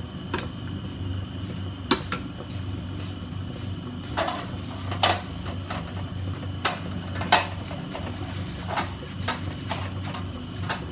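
Ceramic plates and kitchen tongs being handled: about nine sharp clinks and clacks at irregular intervals, the loudest about two, five and seven seconds in, over a steady low hum.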